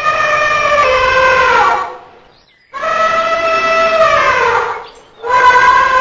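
Elephant trumpeting: long, loud, brassy calls with pitch falling at the end of each, about two seconds apart, with a third call starting near the end.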